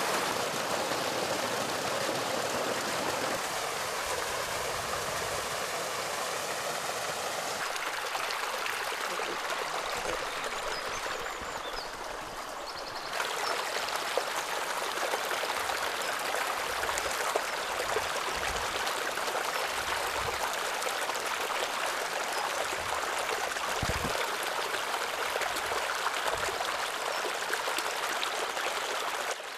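Water running steadily: a small cascade spilling down an earth bank and a shallow stream flowing through grass. The rushing sound changes in character a few times, about 4, 8 and 13 seconds in.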